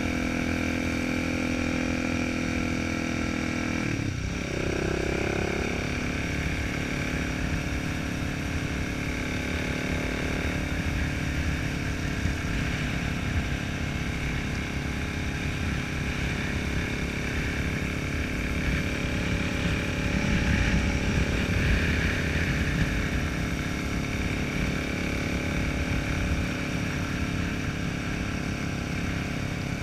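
Motorcycle engine running under way on the road, a steady engine note whose pitch dips and climbs again about four seconds in.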